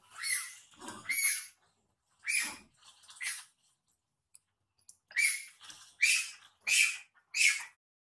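A baby macaque crying in short, shrill screams, about nine in all: four in the first half, a pause of about a second and a half, then five more in quick succession.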